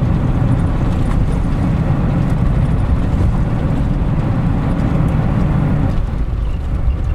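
Steady rumble of tyres and road noise inside a 2018 Toyota 4Runner's cabin while driving off-road on a dirt track, easing a little near the end.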